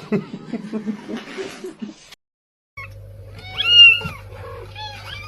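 A low, rough rumbling for about two seconds, then after a short break a cat meowing several times in drawn-out, rising-and-falling calls over a steady background hum.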